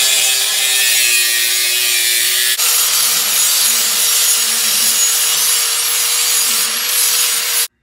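Angle grinder with a cut-off wheel cutting through steel exhaust tubing, its whine sagging slightly as it bites. About two and a half seconds in it gives way to a grinder with a green disc working the cut pipe end at a steady pitch. The sound stops abruptly near the end.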